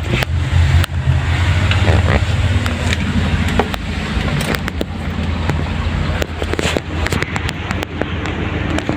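Steady low rumble of a running engine, with scattered light clicks and knocks.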